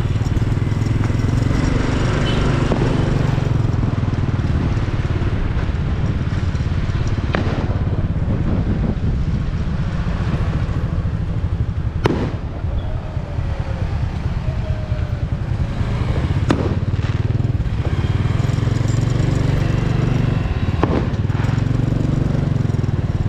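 Motorcycle engine running steadily while riding, a continuous low drone with road noise, broken by a few sharp clicks.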